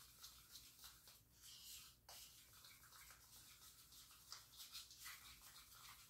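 Near silence, with faint small scrapes and clicks of a spoon stirring white icing in a plastic tub.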